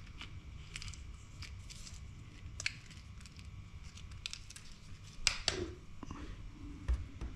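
Faint handling sounds: scattered light clicks and rustles of fishing line and hooks being handled on a hard countertop, over a low room hum.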